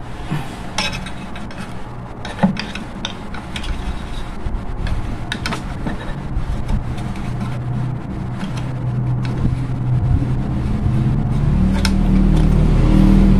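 Plastic squirrel-cage blower wheel of an air cooler being handled and fitted onto its motor shaft: scattered light clicks, knocks and rubbing. From a little past halfway a low steady hum swells and becomes the loudest sound.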